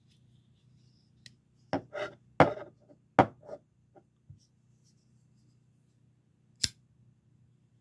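Tac Force folding karambit pocket knife being handled: a quick run of sharp metallic clicks and snaps over a few seconds as the blade is worked open and shut, then one loud click near the end. A faint steady hum sits underneath.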